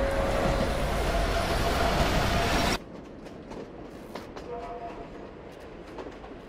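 Subway train running, heard from inside the car: a loud steady noise with a thin steady tone over it. It cuts off abruptly about three seconds in, leaving a much quieter background with faint scattered clicks.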